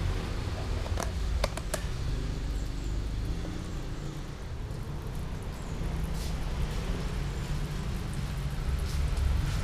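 Margarine being scraped from a plastic tub into a large metal wok: a few light clicks and scrapes of the tub against the wok, mostly between one and two seconds in, over a steady low rumble.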